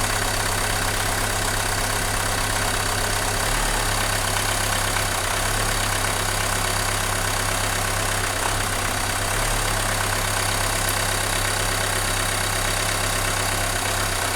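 Renault Mégane 2 engine idling with the fourth cylinder's connector unplugged, a test for an engine that vibrates, shakes and has no power. It coughs as the connector is moved.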